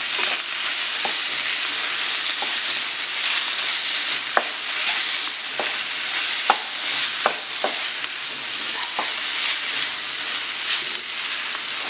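Sliced onions with crushed ginger, garlic and green chilli sizzling in hot oil in a pan, with a spoon stirring and clicking against the pan now and then.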